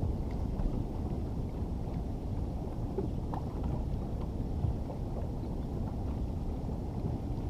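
Wind rumbling and buffeting on the microphone out on an open river from a kayak, steady throughout, with a few faint small ticks.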